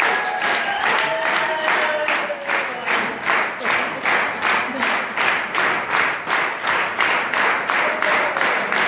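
Audience clapping in a steady unison rhythm, about three claps a second, with a few long whoops from the crowd in the first couple of seconds.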